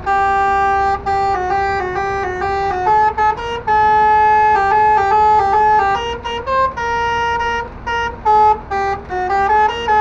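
Six-trumpet 'telolet' musical air horn module on a lorry playing a quick tune of stepped notes, several notes a second with brief gaps and one longer held note about four seconds in, heard from inside the truck cab.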